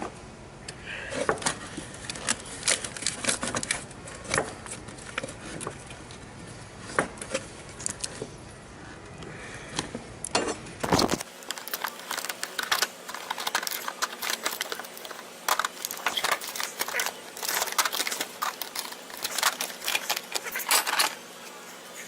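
Irregular clicking and clattering of hand tools and metal parts being handled, with many short sharp clicks and no steady running sound.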